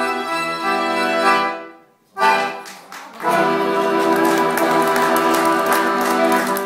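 Violin and accordion duet ending a klezmer tune: a phrase dies away, a short sharp chord, then a long held final chord. Audience applause begins over the held chord.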